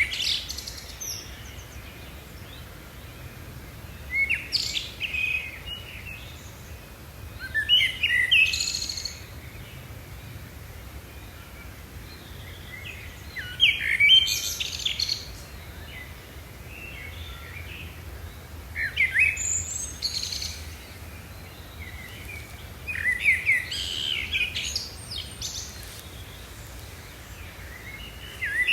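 A songbird singing short chirping phrases every four to six seconds, over a faint steady low hum.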